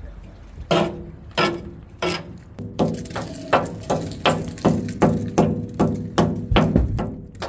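Hammer tapping on a rusty steel boat hull, with sharp ringing knocks that quicken from about one every 0.7 s to about three a second. The hull is being sounded for rust-thinned metal, and the bottom proves solid apart from the odd pinhole.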